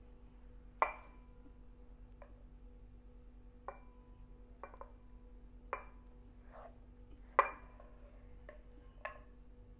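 A wooden spatula scraping rava kesari from a non-stick pan into a glass bowl: about nine light knocks and clinks of utensil, pan and glass, each with a short ring. The loudest knocks come about a second in and at about seven and a half seconds.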